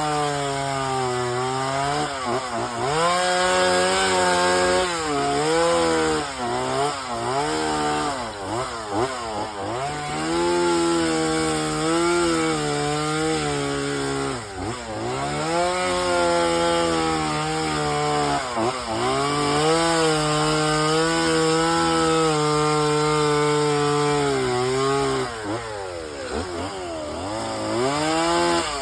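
Chainsaw running as it cuts and carves wood. Its engine note keeps rising and dipping as the bar bites into the wood and is eased off, and it drops briefly a few times.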